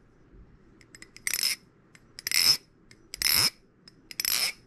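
Hom Design I-Basilisk balisong being flipped: four metallic clacks with a bright ring, about one a second, as the grade 6 titanium handles snap against the tang pins. Called a gorgeous sound.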